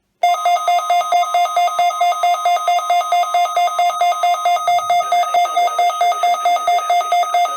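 Electronic emergency alert tone heralding a weather warning broadcast: a loud, rapidly pulsing two-pitch beeping that repeats evenly at several pulses a second.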